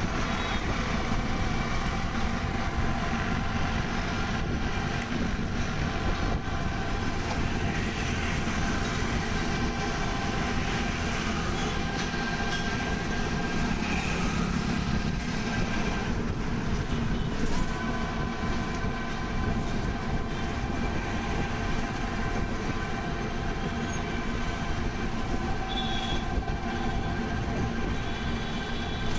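Battery e-rickshaw on the move: a steady whine from its electric drive, several pitches held together and shifting slightly as the speed changes, over a rumble of tyres and passing traffic. A high thin tone comes in near the end.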